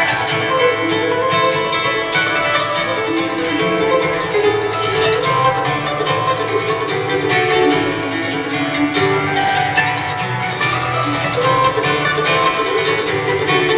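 Acoustic string band playing an instrumental tune live: mandolin, fiddle, banjo, guitar and double bass, with dense runs of plucked notes over a steady bass line.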